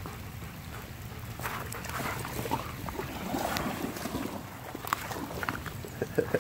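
Two shepherd dogs wading and splashing through shallow river water against a steady hiss of rain. The splashing picks up about a second and a half in, and a few sharp clicks come near the end.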